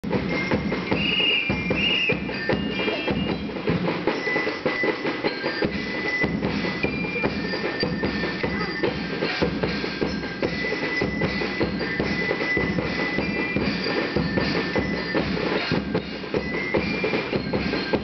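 Music with a steady drum beat.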